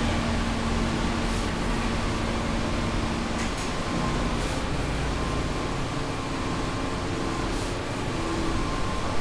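Two large-format inkjet banner printers running: a steady mechanical hum, with faint swishes now and then as the print-head carriages travel.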